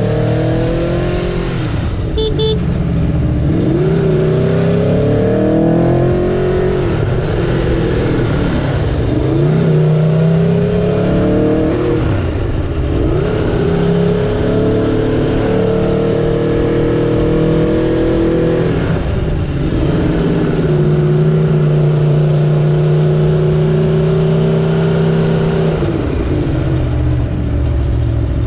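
Aprilia Tuono V4 Factory's V4 engine heard from onboard, rising in pitch on several pulls and dropping back between them, then holding a steady note for a few seconds before falling away near the end, over a steady rush of noise.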